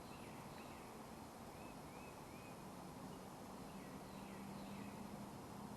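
A bird giving a string of short, quick chirps, faint, over a steady outdoor background hiss.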